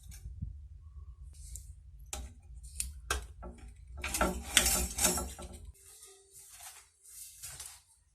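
Light metallic clinks and knocks from metal parts being handled, with a denser stretch of clattering and scraping about four to five and a half seconds in.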